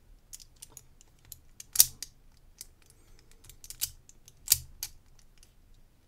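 Metal pieces of a Huzzle Cast Padlock puzzle clicking and clinking as they are turned and slid by hand: scattered light clicks, with two louder clicks, one just under two seconds in and another about four and a half seconds in.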